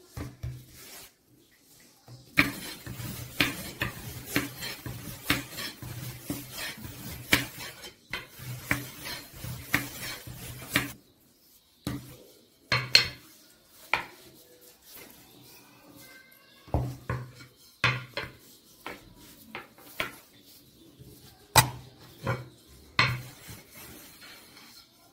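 Long thin wooden rolling pin rolling out pastry dough on a hard tabletop: a fast run of knocks and clacks as the pin rolls and hits the table, thinning out to scattered taps about halfway through.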